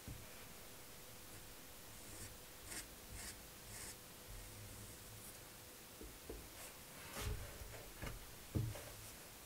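Faint scraping of a thin stick spreading wood glue along wooden strips, in short strokes, followed by a few soft knocks near the end.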